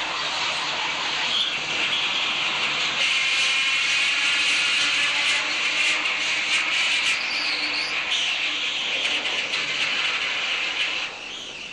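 Sawmill machinery running with a loud, steady hissing noise that drops off near the end.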